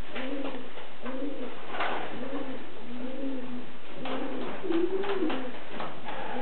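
Young domestic pigeons, about six weeks old, cooing in a run of short arched coos, about two a second, with one louder coo about five seconds in. It is early courtship cooing between nest mates.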